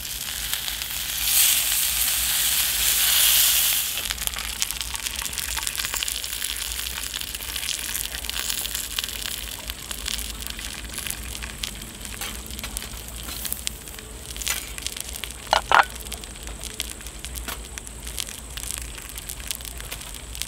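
Lobster frying in a steel pan over a campfire, with a louder sizzle about one to four seconds in. Then the wood fire crackles with scattered small pops, and a brief pair of sharp ringing knocks comes a little past the middle.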